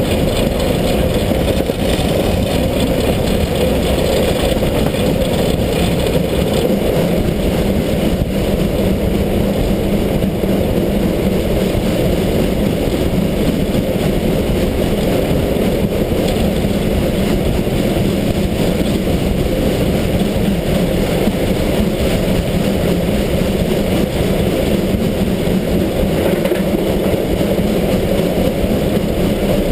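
Steam locomotive 33-037, a 2-10-0 freight engine, running along the line: a loud, steady rumble of its running gear and wheels on the rails, with no clear separate exhaust beats.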